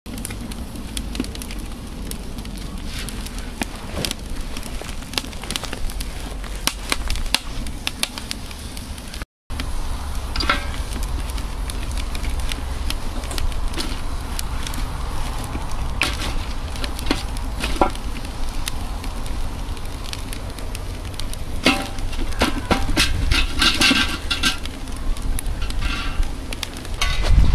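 Campfire crackling, with scattered sharp pops over a steady low rumble.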